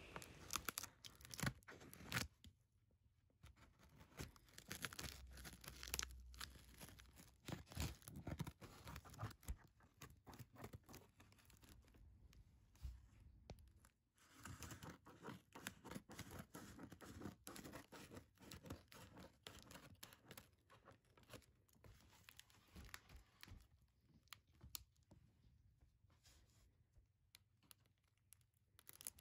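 Faint handling noise of corrugated cardboard shipping boxes: scattered scrapes, clicks and rustling as the boxes are touched and moved, with quiet gaps in between.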